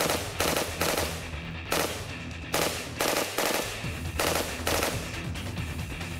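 SIG 552 Commando 5.56 mm rifle firing about four short bursts of rapid shots, with brief gaps between them and a longer pause near the middle, over background music.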